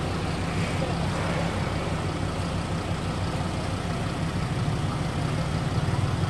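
A motor vehicle's engine idling, a steady low hum.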